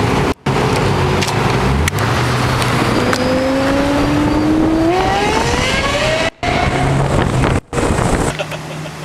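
Lexus LFA's 4.8-litre V10 accelerating hard, its pitch climbing steadily for about three seconds in the middle before settling back. The sound cuts out briefly a few times.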